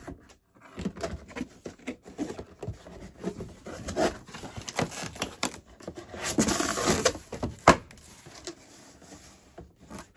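Corrugated cardboard box flaps being pulled open by hand: irregular scraping and rustling of cardboard, loudest about six to seven seconds in, with a single sharp snap shortly after.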